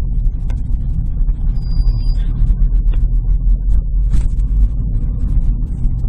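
Low road and engine rumble inside a slow-moving 2008 Seat Ibiza's cabin. About one and a half seconds in comes a short high-pitched squeal: the rear brakes dragging while the pedal is off, at low speed.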